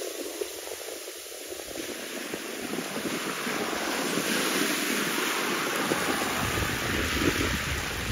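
Wind buffeting the microphone over choppy harbour water lapping at the shore, gusting harder in the second half.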